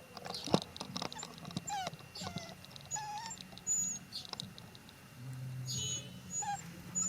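Small animal squeaks and chirps, short and pitched, some sliding up or down, mixed with scattered clicks over a low hum.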